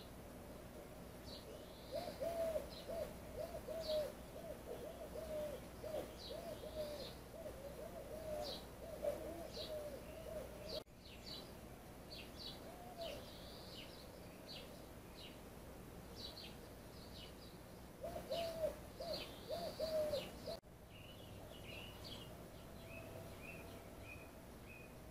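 Birds calling: runs of quick, short low calls mixed with higher chirps, in two spells, the first in the first half and a shorter one near the end.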